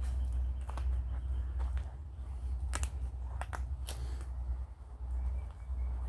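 Footsteps crunching on dry leaf litter and dirt, heard as a few irregular crackles and clicks over a steady low rumble.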